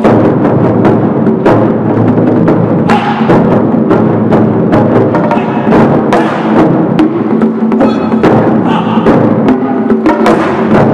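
An ensemble of large barrel drums beaten with wooden sticks, playing a dense, driving rhythm of strikes with no break.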